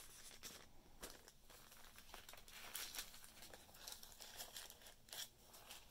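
Faint rustling and crinkling of a thin paper bag and paper cards being handled, with a few soft clicks.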